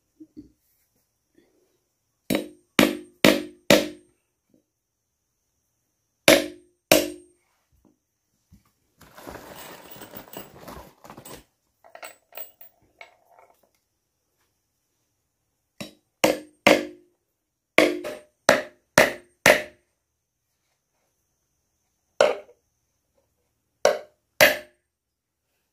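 Claw hammer driving nails into the seat of a wooden stool: sharp knocks in quick runs of two to seven strikes, with pauses between them. A short rustle partway through.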